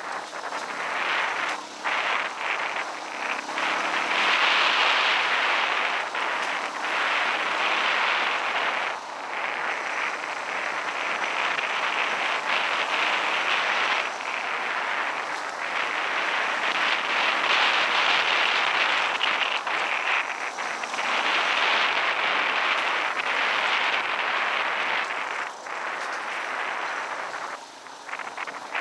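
Dual-sport dirt bike riding along a dirt trail: its engine under heavy wind noise on the on-board microphone. The level swells and falls, with brief drops every few seconds.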